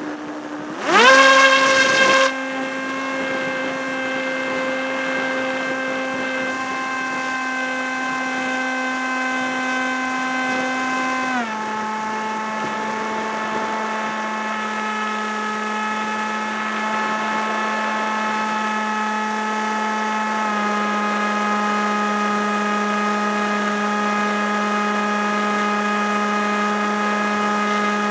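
Electric motor and propeller of a Multiplex EasyStar RC plane, picked up by a camera on board: it spins up with a rising whine about a second in, with a brief loud rush of air, then drones at a steady pitch that steps slightly lower twice, near the middle and again later on.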